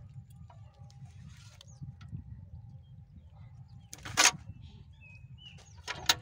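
Water hyacinth plants being pulled and stripped by hand: a loud rustling tear about four seconds in and a shorter one near the end. Short bird chirps come now and then over a steady low rumble.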